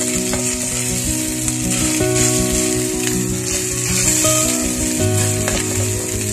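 Hot oil sizzling steadily in a frying pan as chunks of food sauté, over background music with held notes that change every second or so.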